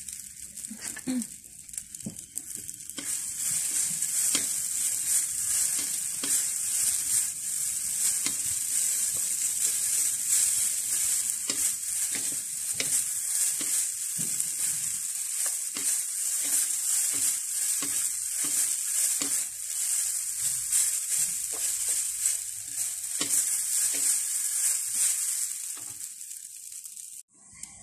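Thin wonton egg noodles sizzling in a little oil in a non-stick wok, stirred and tossed with a wooden spatula: a steady high hiss with frequent light scrapes and taps of the spatula on the pan. The sound cuts out briefly near the end.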